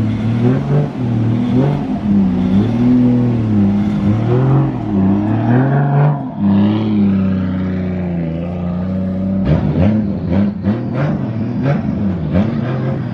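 A car engine being revved over and over, its pitch rising and falling in repeated blips. From about nine and a half seconds in, the revs come shorter and quicker, with sharp cracks among them.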